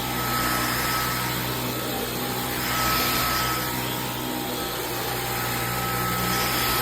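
Dyson V15 Detect cordless stick vacuum running steadily: a high, even motor whine over a rush of air, swelling slightly in loudness now and then.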